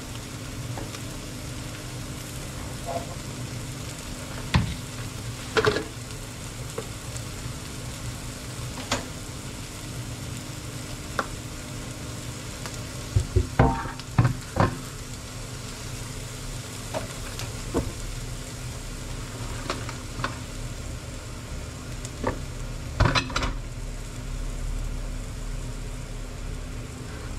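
Food frying in a pan on a gas stove, a steady sizzling hiss. It is broken by scattered knocks and clatter of pots and utensils, with a cluster about halfway through and another near the end.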